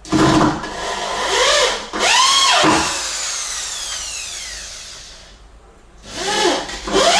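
Drill driving a 65 mm self-tapping screw through plywood into a wooden joist, its motor speeding up and bogging down under load. A falling whine follows as the motor winds down, and a second burst of driving comes about six seconds in.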